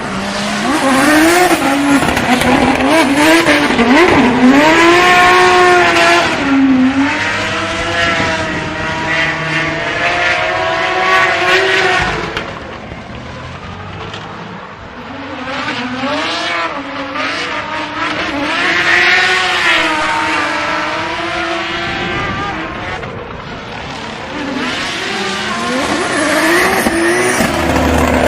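High-horsepower drift cars' engines revving hard and swinging up and down in pitch, with tyres screeching as the cars slide through a corner. The sound drops away about twelve seconds in, then builds again as more cars come through.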